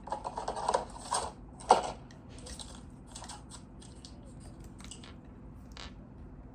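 Close handling noise of small objects: a busy run of clicks, taps and rustles with a sharp knock about two seconds in, then lighter scattered ticks.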